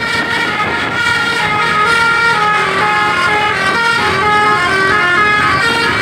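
Telolet basuri musical air horn on a bus playing a quick melody, several horn tones sounding together and stepping up and down in pitch. It starts suddenly.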